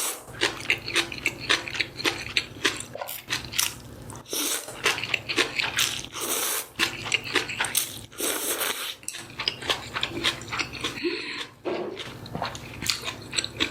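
Close-miked eating sounds of chewy jjolmyeon noodles in cold broth: several long slurps about two seconds apart, with wet chewing in between.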